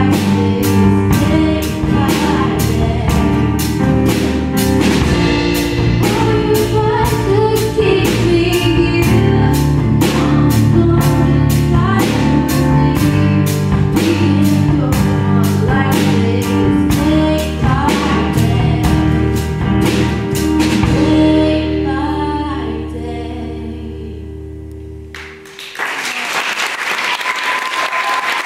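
Female singer with a Yamaha keyboard and a steady beat, performing a mainstream pop song. The music fades out about three-quarters of the way through, and an audience starts applauding near the end.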